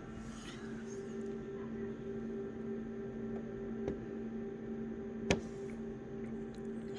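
Flatbed scanner running a scan: a steady motor hum starting at the beginning, with two sharp clicks about four and five seconds in.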